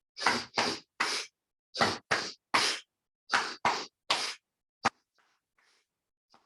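Forceful rhythmic breathing through the nose: three cycles of two quick sniffing inhales (belly, then chest) and a sharp exhale, about a cycle and a half apart. It ends with a single hand clap about five seconds in.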